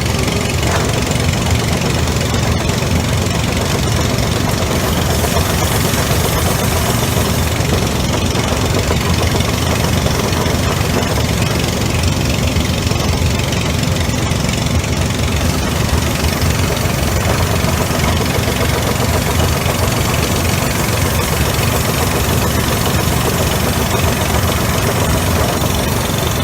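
A motor running steadily and loudly with an even drone, typical of the motor-driven equipment used to clean out a clothes dryer vent.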